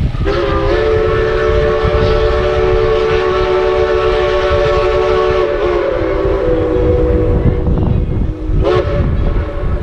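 A locomotive's chime whistle sounds one long multi-note blast of about eight and a half seconds. The chord steps slightly lower about halfway through and ends with a short toot near the end.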